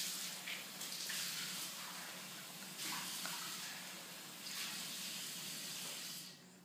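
Running water with a steady rushing hiss, as from a tap, that stops abruptly near the end.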